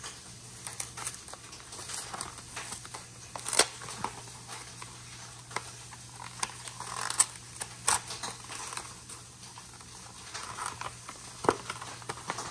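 A Pokémon TCG collection box being opened by hand: scattered taps, scrapes and crinkles of its card and plastic packaging, with a few sharper clicks.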